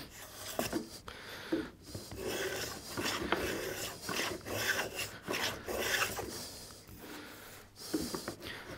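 Small hand plane taking short strokes across the edge of a thin wooden panel, shaving it down to fit a groove; a run of scraping cuts one after another with brief pauses between them.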